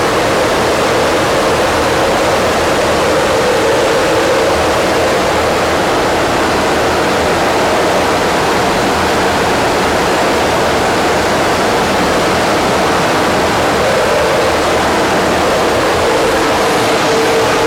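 Steady, loud rushing noise that does not change, with a faint hum in it.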